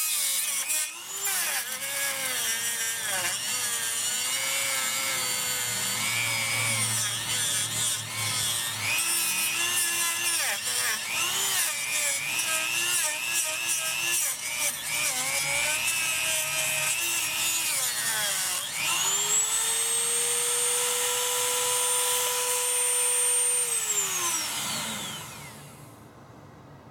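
Dremel rotary tool with a cutoff wheel cutting into a Saturn's plastic intake manifold, its motor whine wavering up and down as the wheel bogs in the plastic. About two-thirds of the way through it runs free at a steady high whine, then is switched off and winds down to a stop near the end.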